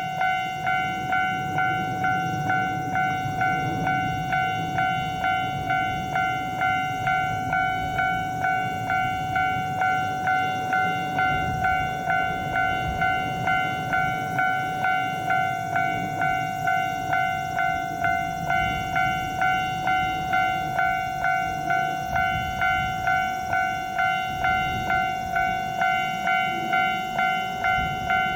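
Japanese railway level crossing warning bell ringing in an even, repeated ding, about one and a half strikes a second, over a low rumble.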